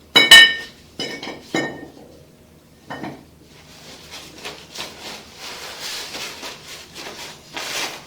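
A loud metallic clank that rings briefly, followed by a few softer knocks and then several seconds of rustling and scraping, like metal gear being handled.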